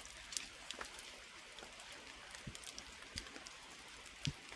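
Light rain in the forest: a faint steady hiss with scattered drops ticking. A few soft low thumps, the loudest near the end.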